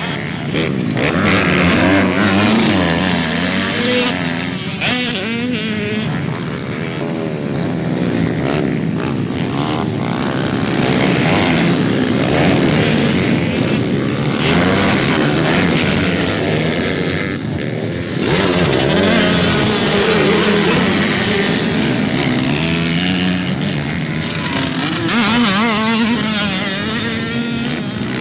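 Several motocross dirt bikes racing past on a dirt track, their engines revving up and falling off over and over as the riders work the throttle. Several engines overlap, each rising and falling in pitch.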